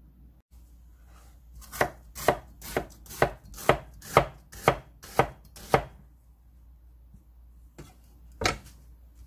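Kitchen knife chopping an onion on a wooden cutting board: about nine even strokes at roughly two a second, then a single stroke near the end.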